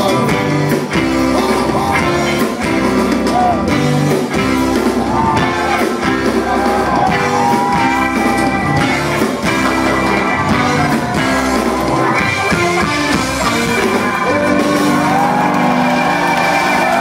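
Live rock band playing, with a woman singing lead over guitar, keyboard, bass and drums.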